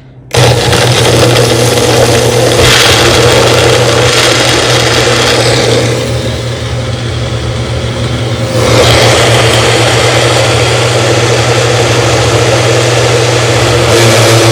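Magic Bullet personal blender's 250-watt motor base running at full speed, blending fruit and milk: it switches on abruptly about half a second in with a steady motor hum and whir. Around the middle it runs softer and quieter for a couple of seconds, then comes back up to full level.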